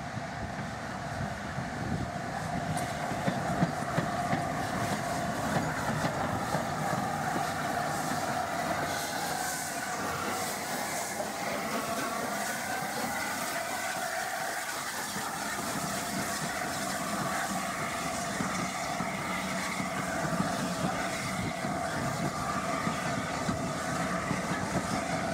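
LNER A4 three-cylinder Pacific steam locomotive 'Sir Nigel Gresley' and its train of wooden-bodied coaches running past, wheels knocking over the rail joints, with wind buffeting the microphone. A wavering high squeal comes and goes around the middle as the locomotive passes.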